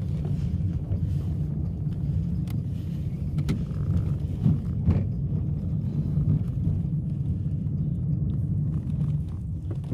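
Suzuki car's engine and road noise heard from inside the cabin while driving: a steady low rumble, with a few faint clicks and knocks.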